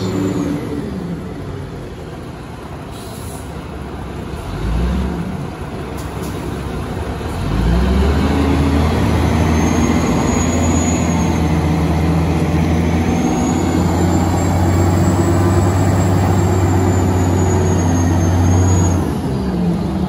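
Diesel engine of a large Wagner log stacker carrying a bundle of logs: it runs lower at first, then revs up about seven and a half seconds in and holds hard under load, with a high whine rising and falling over it, before easing off near the end.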